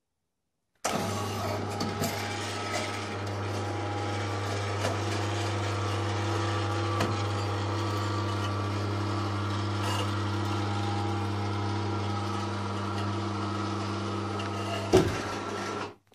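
Electric cable hoist motor running with a steady hum as it lowers a wooden staircase on its cable. The hum starts about a second in, there is a single loud knock near the end, and the hum cuts off suddenly.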